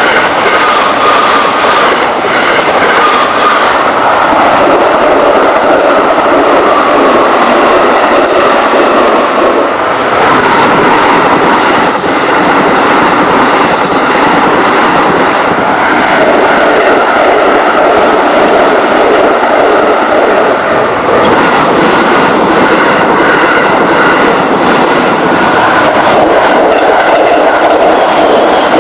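A long freight train running past at close range for the whole time, a steady loud rumble with its wheels clattering over the rail joints. Two brief high hisses come about halfway through.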